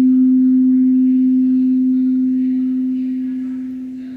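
Crystal singing bowl tuned for the root chakra, sounding one steady low tone that fades a little near the end.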